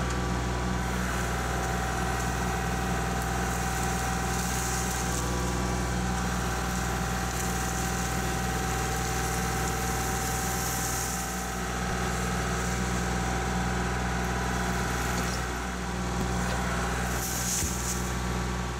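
Kubota L3901 tractor's diesel engine running steadily at a constant speed while the backhoe is worked, the sound dipping briefly twice.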